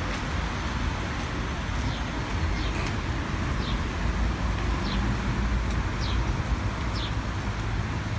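Street ambience: a steady low rumble of road traffic, with a small bird giving short falling chirps about once a second.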